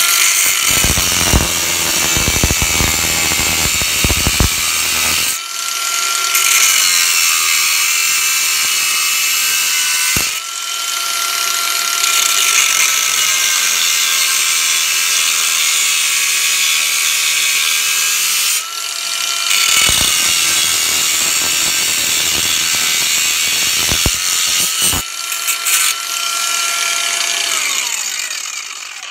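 Haimerdinger LB168 18 V brushless cordless angle grinder with a 125 mm cut-off disc running at speed and cutting into a metal tube: a loud, steady high whine over grinding noise. Its pitch dips and recovers several times, and the motor winds down near the end.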